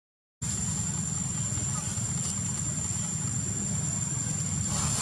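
Steady low rumble of outdoor background noise with a constant thin high-pitched whine above it, after a brief cut to silence at the very start.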